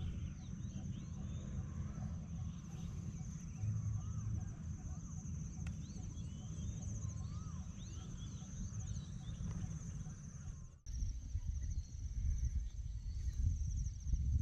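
Open-country ambience: birds calling in short chirps over a steady high-pitched trill, with a low rumble underneath. The sound cuts out briefly about eleven seconds in, then resumes.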